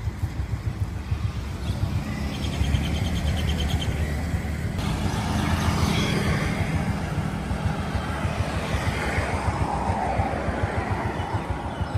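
Street traffic: motorcycle engines running and passing by, over a steady low engine hum.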